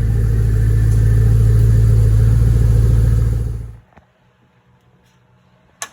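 Pontiac G8 GT's V8 engine running steadily on its stock exhaust manifolds, then stopping abruptly a little over halfway through. A faint hush follows, with a single sharp click near the end.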